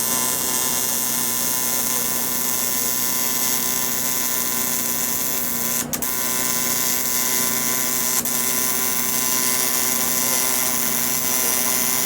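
AC TIG welding arc on aluminum, a steady buzzing hiss as a stitch weld is laid on a billet aluminum mass-air-flow flange. The arc briefly falters twice, about six and eight seconds in.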